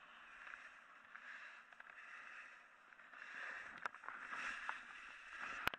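Snowboard sliding and carving over snow: a steady scraping hiss that swells about three to five seconds in, then a single sharp knock near the end.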